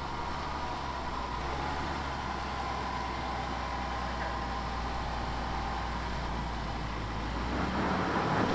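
Range Rover L405's engine running at low revs as the SUV crawls up a steep sandy slope, a steady low hum. Near the end it gets louder, with crunching from the tyres on the dirt.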